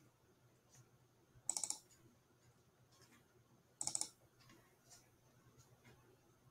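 Faint computer mouse clicking: two short bursts of quick clicks, about a second and a half in and again about four seconds in.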